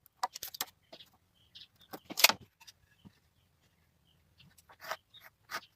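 Scattered light clicks, taps and scrapes of thin pallet-wood slats and marking tools being handled, with a louder knock about two seconds in and two sharper clicks near the end.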